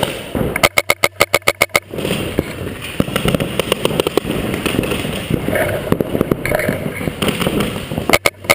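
Paintball markers firing Reball rounds: a rapid burst of about ten shots a second lasting about a second, starting shortly after the beginning, and a second rapid burst near the end, with scattered shots and clatter between.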